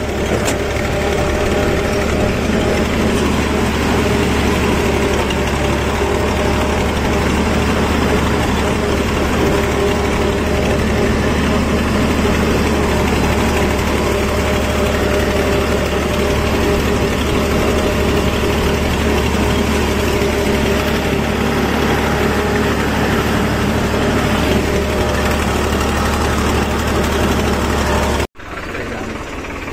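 Old HMT tractor's diesel engine running steadily under way, heard close up from the driver's seat. It cuts off suddenly about a second before the end, and a quieter engine sound follows.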